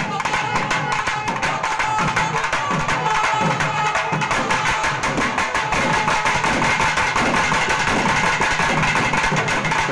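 A group of double-headed barrel drums, slung from shoulder straps, played together in a fast, dense rhythm, with a steady high note held above the drumming.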